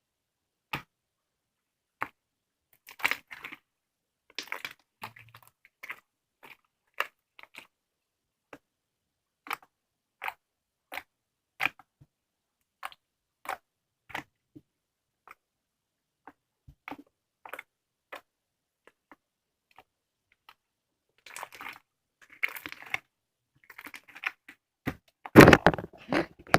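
Slime being pressed and poked, giving short, sharp clicks and pops at irregular intervals, about one to three a second. The pops thicken into denser crackling squishes near the end.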